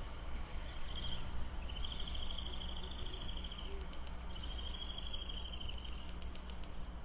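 A high, even-pitched trill heard three times: a short one about a second in, then two of about two seconds each. A steady low hum runs underneath, with a few faint clicks near the end.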